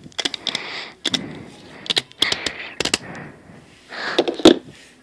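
Handling noise close to the microphone: a string of sharp clicks and knocks with short bursts of rustling as the phone camera is fumbled.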